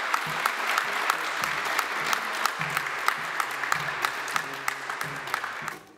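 A group of people applauding, many hands clapping steadily; the clapping cuts off suddenly near the end.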